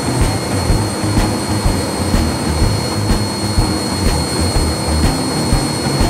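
Front-loading washing machine spinning on its spin cycle, its drum oversudsed with detergent foam that is being forced out of the machine. A steady running noise with a low rumble, a thin high whine held throughout, and a faint click about once a second.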